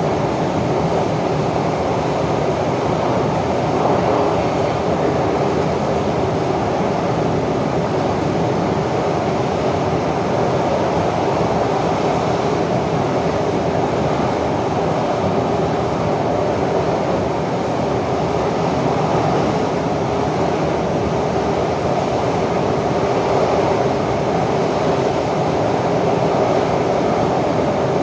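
Interior of a Kawasaki/CRRC CT251 metro train car running at speed between stations: a steady rumble of wheels on rail and running gear, with a faint steady hum.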